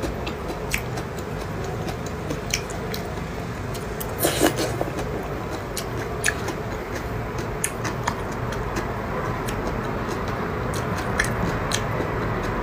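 Close-up chewing and mouth sounds of a person eating slices of raw fish, with scattered soft clicks and a louder burst of mouth noise about four seconds in, over a steady background hiss.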